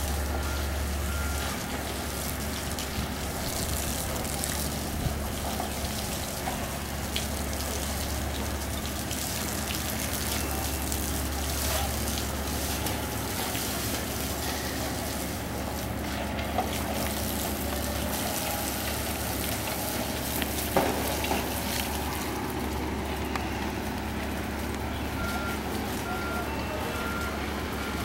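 Traffic and construction-site noise: a steady rumble of vehicles with a few knocks, and a reversing alarm beeping briefly near the start and again near the end.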